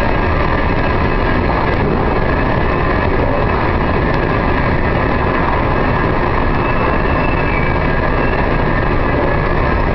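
Very long Metro station escalator running while being ridden: a steady, loud mechanical din with faint, steady high tones on top.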